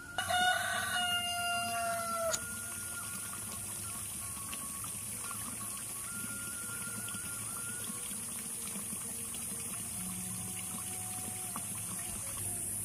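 A rooster crowing once, a single long call of about two seconds that cuts off sharply, followed by a steady background hiss.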